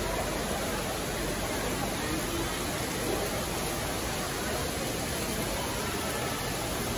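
Steady, even background noise of a busy indoor garden hall, with faint distant crowd chatter.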